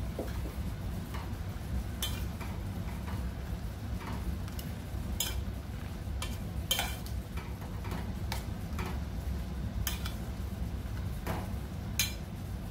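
A metal spoon stirring pumpkin and cowpeas in a stainless-steel pot, clicking and scraping against the pot's side at irregular moments, over a steady low hum.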